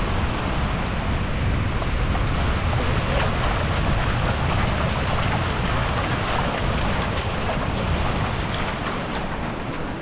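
Strong wind buffeting the microphone, with the steady wash of surf running up the beach underneath.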